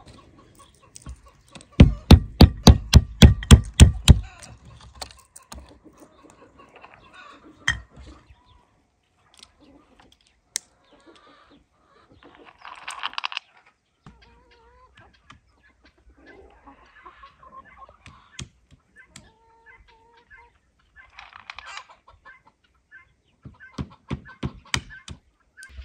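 Rapid run of hard knocks, about a dozen in two seconds, from a stone cracking walnuts on a wooden stump, with a shorter run of knocks near the end. In between, chickens cluck.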